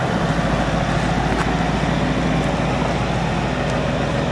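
Mercedes-AMG E63 S's 5.5-litre twin-turbo V8 idling steadily through a straight-piped exhaust, an even low rumble with no revving.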